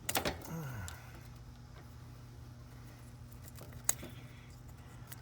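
Spade wire connectors being pulled off the terminals of a 30+5 run capacitor: a few sharp metal clicks at the start and one more about four seconds in, over a steady low hum.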